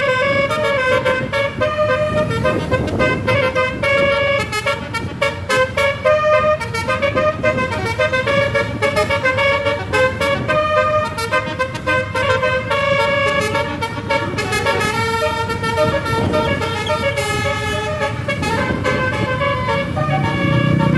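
Bus telolet horn: a Basuri multi-tone air horn playing a quick tune of stepped notes over and over, above a low vehicle rumble.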